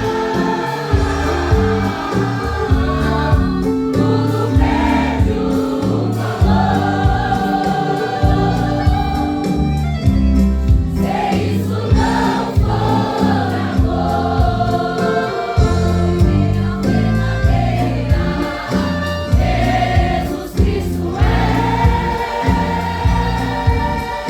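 Pentecostal gospel worship medley: a choir singing together in Portuguese over a full band with a steady, upbeat rhythm.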